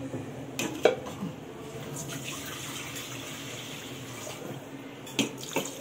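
Water running steadily for a few seconds, with a couple of sharp knocks near the start and two more near the end.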